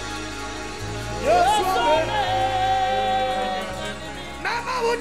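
Live gospel worship music: a woman sings over low chords held by the band. Her voice comes in about a second in, holds one long note, and starts a new phrase near the end.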